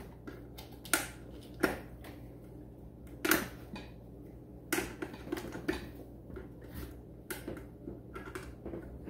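Spark plug wire boots being pulled off the terminals of a GM large-cap HEI distributor cap: a run of sharp snaps and clicks at irregular spacing, the loudest in the first five seconds.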